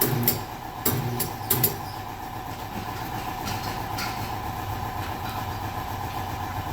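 Steady machine hum with sharp clacks: about five in the first two seconds, then two more around three and a half and four seconds in, from a tire-changing machine at work.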